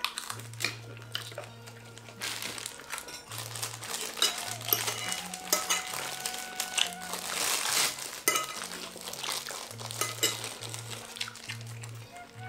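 Spoons and hands clinking on plates while crunchy fried snacks are bitten and chewed, a run of sharp clicks and crackly crunching, over background music.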